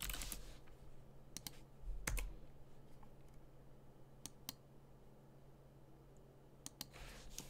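Computer keyboard keystrokes: a short run of keys at the start, then single key presses spaced a second or two apart, picking up again near the end. A faint steady hum lies under them.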